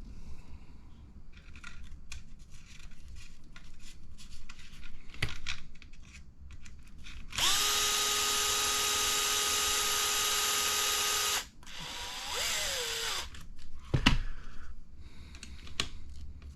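Small electric screwdriver driving a screw into the buggy's front end: a steady whir for about four seconds, then a shorter, quieter run that winds down in pitch. Small clicks of parts and tools being handled come before and after it.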